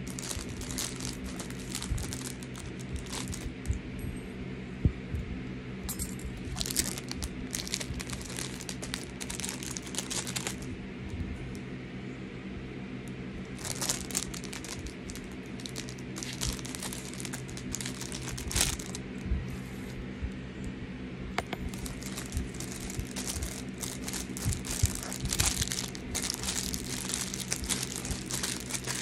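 Plastic packaging crinkling and rustling as it is handled, in irregular bursts, over a steady low hum.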